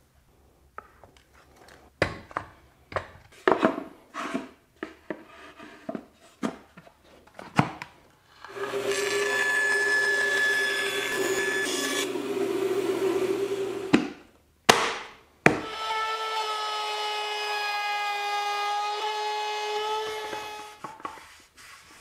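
Scattered scrapes and knocks of wood being handled, then a band saw running and cutting a glued-up wooden panel with a steady whine. The saw runs in two stretches of several seconds each, with a short break between them.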